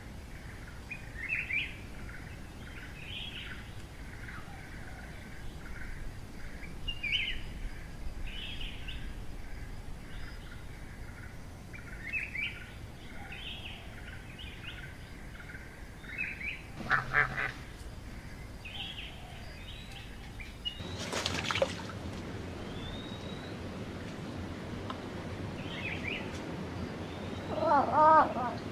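Small birds chirping steadily in the background, with a short pitched call from a fishing cat a little past halfway and a louder, wavering fishing cat call near the end.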